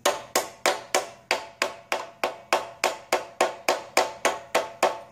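Metal tool tapping steadily on the carburetor float bowl of an old Honda generator engine, about three sharp, ringing taps a second. The tapping is meant to jar loose a float needle and seat that are stuck shut, since no fuel flows from the bowl drain.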